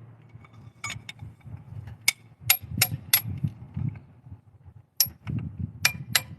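Hand tools working on metal engine parts: a string of sharp metallic clicks and clinks, about nine at irregular intervals, over low dull knocks.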